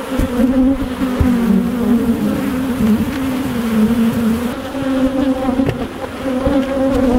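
Honey bees buzzing loudly en masse, a steady hum that wavers in pitch, from a colony stirred up while its hive is being worked: the keeper calls them mad. A few faint knocks as the wooden hive boxes are set in place.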